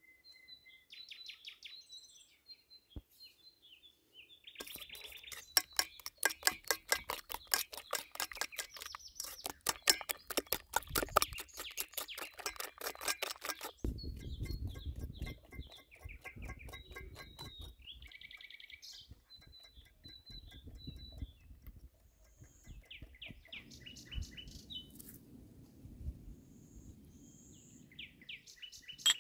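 Small birds chirping throughout. From about four seconds in, a whisk beats rapidly and evenly against a stainless-steel bowl for roughly ten seconds, mixing cake batter, then stops; softer handling noise follows under the birdsong.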